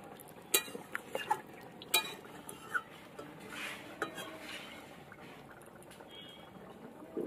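Handling sounds as raw fish fat and swim bladders are picked apart by hand over a bamboo basket: several sharp, light clicks and knocks in the first three seconds over faint rustling.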